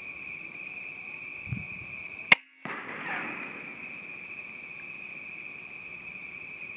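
A single shot from a .177 air rifle, one sharp crack a little over two seconds in, over crickets calling steadily.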